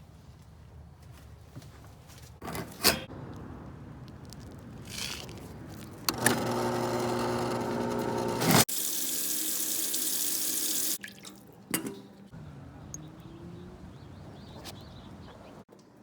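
Water tap turned on: a humming tone at first, then a loud rush of running water for about two seconds that stops abruptly. A few knocks come before and after.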